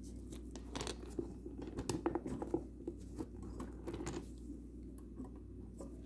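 Handling noises as a plastic-gloved hand sets the rubber barrel of a rock tumbler onto its rollers: a flurry of crinkles, rustles and small knocks for about four seconds, over a steady low hum.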